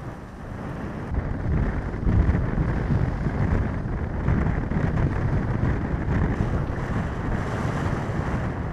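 Wind buffeting the microphone in a steady low rumbling rush, over the wash of choppy water; it gets louder about a second in.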